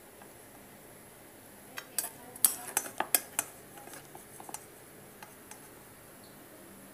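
A utensil clinking and tapping against a plate as bean sprouts are piled onto fried tofu: a quick run of sharp clinks about two seconds in, then a few lighter taps.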